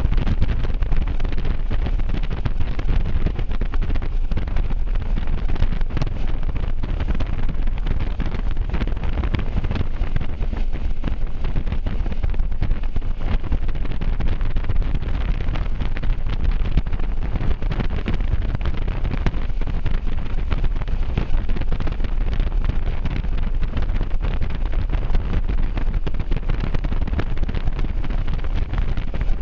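Steady wind buffeting the microphone of a camera on a moving motorcycle: a constant low rumble of wind and road noise, with no distinct engine note standing out.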